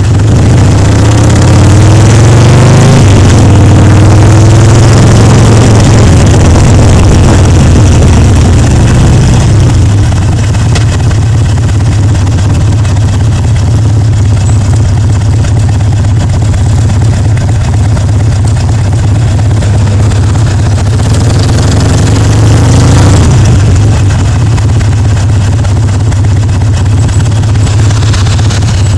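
Harley-Davidson Sportster Seventy-Two's air-cooled 1200 cc V-twin running loud through its pipes while being ridden, its pitch rising over the first few seconds, breaking off, and rising again a little past twenty seconds in as the bike accelerates. Wind rushes on the microphone.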